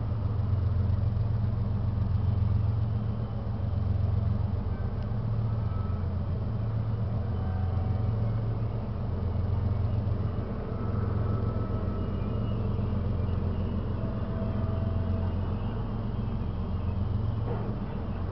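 Canadian Pacific Railway yard noise heard from about a mile away: a steady low engine rumble that swells and fades slowly, with a few faint, brief tones drifting over it.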